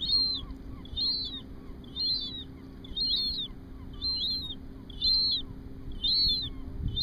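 Young gulls giving high-pitched begging calls to a parent, repeated about once a second without a break: the hunger begging of chicks that want to be fed.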